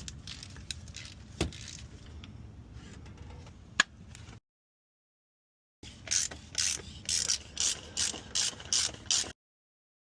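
Hand ratchet wrench worked in a quick run of strokes, about three a second, turning a fastener on the car. Before it come scattered sharp clicks and knocks of hand-tool work.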